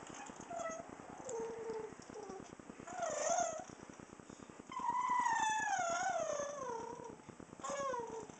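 Dog vocalising: a few short whines, then one long wavering howl that falls in pitch, and a shorter falling whine near the end.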